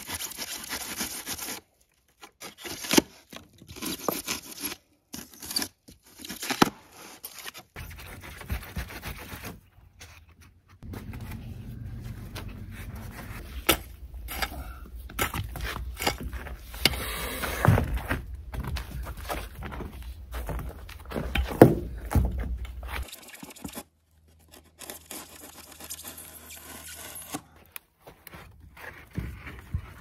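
Scraping and tearing of pink rigid foam insulation board being cut and notched by hand, then a shovel scraping and chopping into soil, with a few sharp knocks.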